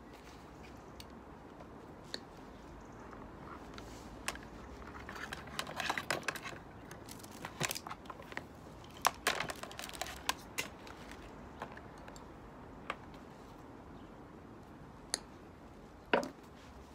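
Hands working electrical cable: scattered clicks, taps and crinkling of the wires and their plastic insulation as they are stripped and twisted together. The handling is busiest in the middle, with a sharper knock near the end.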